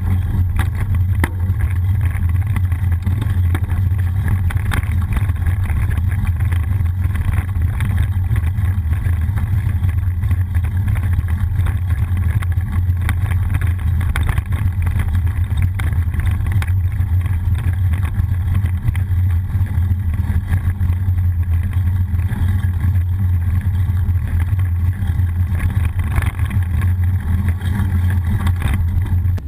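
Steady low rumble of wind and road vibration picked up by a bicycle-mounted action camera while the bike rolls along a street, with faint small rattles from bumps.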